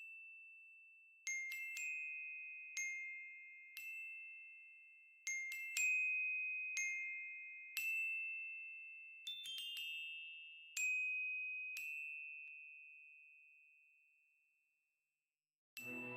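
Bell-like music-box or glockenspiel notes: single high struck notes on two or three pitches, each ringing and fading, roughly one a second with a few quick runs, dying away about three-quarters through. Just before the end a fuller, lower-pitched music bed comes in.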